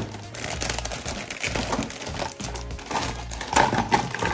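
Clear plastic bag crinkling and rustling as plastic toy parts are handled and pulled out of it, with louder rustles near the end, over background music with a steady bass.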